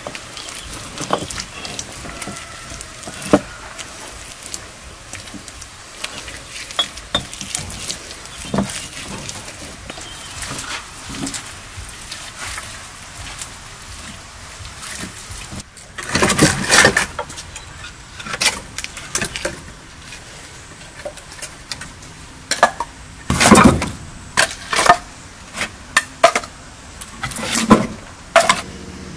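Soft scraping and slapping of wet mud being smoothed by hand over the brick oven dome. After a cut about halfway through, loud irregular clunks and clatter of cut branch firewood knocking together as it is handled and stacked.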